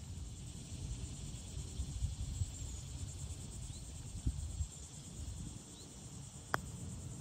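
A single sharp click of a golf club striking the ball about six and a half seconds in, over a steady high insect buzz, low wind rumble and a few brief bird chirps.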